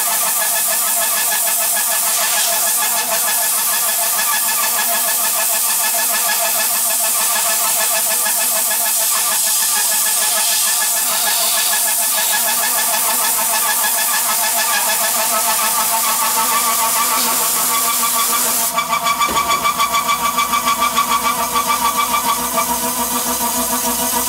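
A 4-inch side milling cutter on a Tormach PCNC 1100 slotting an aluminium heat sink: a steady machining whine with several pitched tones, under the hiss of a compressed-air blow gun aimed at the cutter. About three-quarters of the way through, the air hiss stops and the cutting sound takes on a rapid pulsing flutter.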